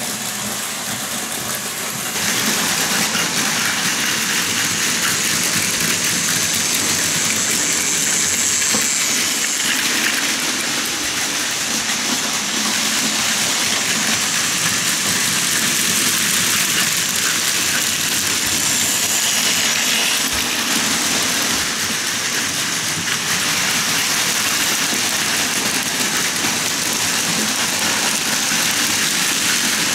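Plarail Advance battery toy trains and an N-gauge model train running on their tracks: a steady mechanical running noise of motors and wheels on track, getting louder about two seconds in.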